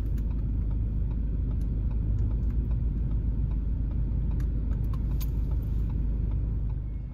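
Steady low rumble of a car heard from inside its cabin, with a few faint clicks and rattles over it.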